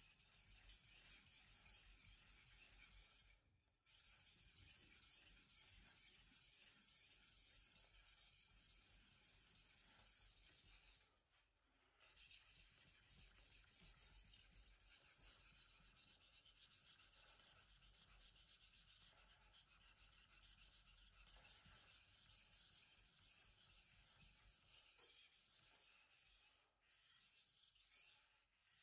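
Faint steady scraping of a deba knife blade stroked back and forth on a wet King 800-grit whetstone, with short breaks about three seconds in and about eleven seconds in.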